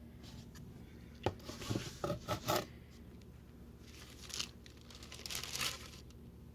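Paper packaging rustling and crinkling as it is handled and pulled out of a freshly opened shipping box, in several short bursts with a faint steady low hum underneath.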